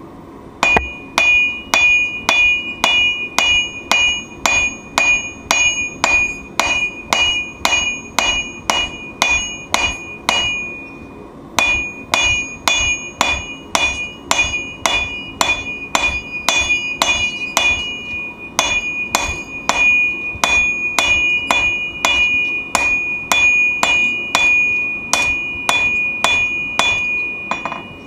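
Hand hammer striking steel on an anvil in a steady rhythm of about two blows a second, forging a knife, each blow ringing with a clear high anvil tone. There is a short pause about eleven seconds in.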